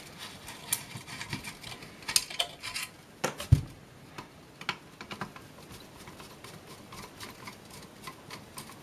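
Screwdriver backing long screws out of a plastic heater housing: scattered small clicks, taps and scrapes of metal on plastic, with one louder knock about three and a half seconds in.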